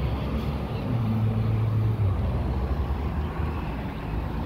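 Steady rumble of a motor vehicle engine running, with a low steady hum rising out of it about a second in and stopping a second later.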